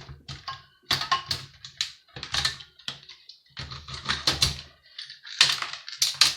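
Irregular clicking and clattering of metal and plastic parts being handled and worked loose while a Sky satellite TV box is dismantled by hand.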